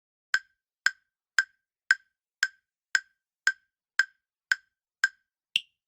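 Countdown timer sound effect ticking: ten even, clock-like ticks about two a second, then one higher-pitched tick near the end as time runs out.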